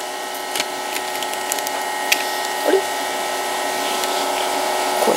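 Steady machine hum made of several fixed tones, slowly growing louder, with scattered light clicks and taps of things being handled on a wooden table.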